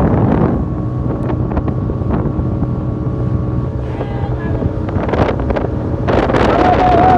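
A boat's engine runs steadily at sea, with wind buffeting the microphone and water rushing past. Near the end a short wavering, whistle-like tone sounds over it.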